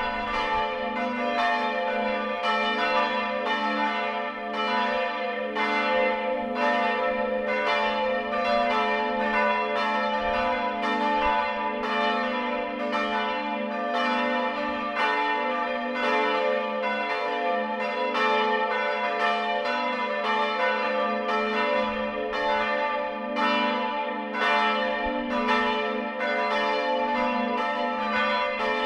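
Church bells ringing in a full peal: several swinging bells strike in overlapping, uneven succession, about once or twice a second, over a steady hum of their lingering tones.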